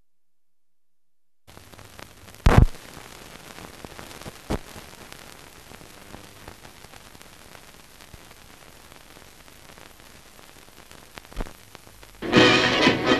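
Hiss and crackle of an old film soundtrack, starting after about a second and a half of silence, with a few sharp pops, the loudest about two and a half seconds in. Music starts near the end.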